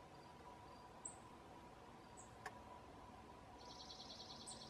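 Near silence of a grassy field with a faint steady hum, a few brief high chirps, and near the end a short, rapid high-pitched trill.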